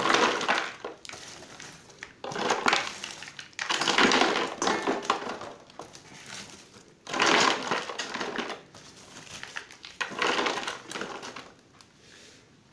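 Handfuls of dry orchid bark chunks scooped from a plastic bowl and poured into a cut-down plastic bottle pot around the orchid's roots. The bark crunches and rattles in about five separate bursts.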